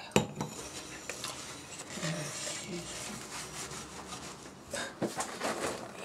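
Dishes being scrubbed by hand in a stainless-steel kitchen sink: a steady rubbing scrape, with a sharp knock just after the start and a few more clinks near the end.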